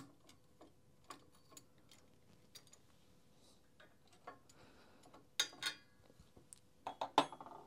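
Scattered small metallic clicks and ticks as a part of a multi-tool rotor assembly is pressed out on a press with a screwdriver bit as the drift. A quick run of sharper clicks comes about five and a half seconds in, and another about seven seconds in.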